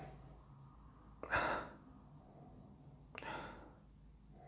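A man sniffing at a glass of whisky while nosing it: two short, sharp inhalations through the nose about two seconds apart, the first louder.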